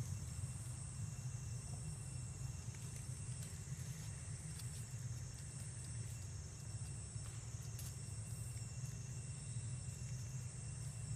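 Outdoor ambience of an insect chorus: a high, shrill drone that slowly swells and fades every second or two, over a steady low rumble.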